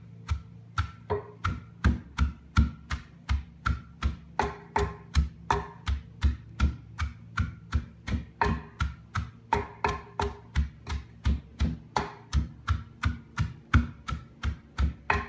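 A hand masher pounding salted shredded cabbage down in a crock, in steady thuds about three a second. The pounding breaks the cabbage down to draw out its juice for sauerkraut.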